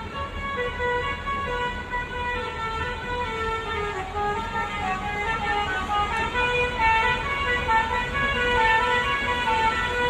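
Bus 'telolet basuri' musical horn playing a continuous melody of short held notes that step up and down in pitch.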